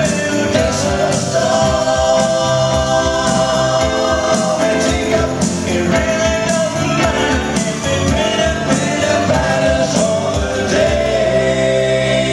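Live band playing a rock-and-roll song: electric guitar, bass guitar and keyboards with male voices singing.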